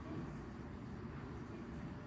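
Steady low rumble of background room noise, with no distinct events.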